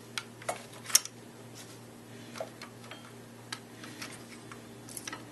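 Hard plastic parts of a robot arm kit clicking and tapping as they are handled and fitted together: a string of irregular sharp clicks, the loudest about a second in, over a steady low hum.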